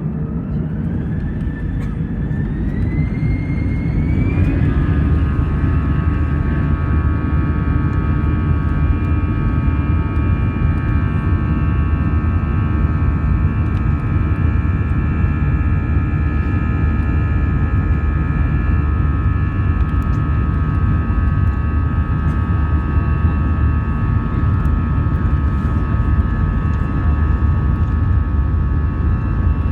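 Airbus A320 jet engines heard from inside the cabin, spooling up for takeoff: a whine rises in pitch over the first four seconds or so, then settles into a steady drone over a deep rumble, louder once the engines reach takeoff thrust.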